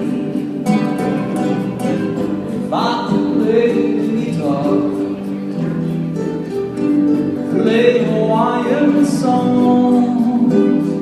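Live Hawaiian music: strummed guitars keeping a steady beat, with voices singing melody phrases that come in about three seconds in and again near eight seconds.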